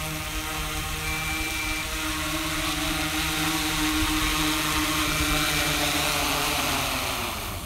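Multirotor drone's motors and propellers whirring steadily as it descends to land. Near the end the pitch winds down and the sound stops as the motors shut off on touchdown.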